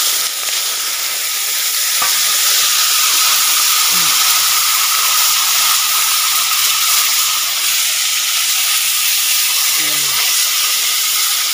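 Sugar palm grubs frying in hot oil in a wok, a loud steady sizzle that swells a little about two seconds after they go in.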